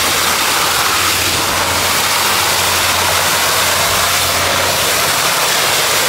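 Water pouring over a pond's overflow spillway: a loud, steady rushing with a low, even rumble underneath.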